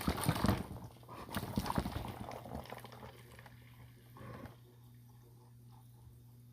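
Water sloshing and gurgling inside two plastic soda bottles joined by a tornado-bottle connector, with a rapid run of knocks from the bottles being handled and swirled for the first two or three seconds, then fading to faint ticking.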